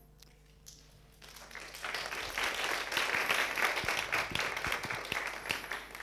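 Audience applauding: the clapping builds up about a second in, holds, then fades away near the end.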